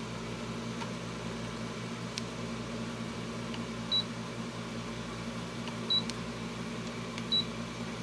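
2003 Sharp Comfort Touch window air conditioner running with a quiet, steady low hum and fan noise. Its control panel gives three short high beeps, at about four, six and seven and a half seconds in, as its buttons are pressed.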